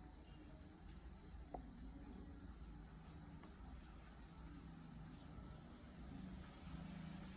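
Faint, steady trilling of crickets, several high pulsing tones at once, over a low background rumble.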